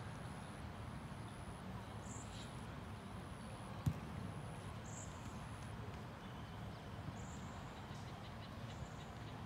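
Open-air background noise: a steady low rumble with a few faint, short high-pitched chirps, and one sharp knock about four seconds in.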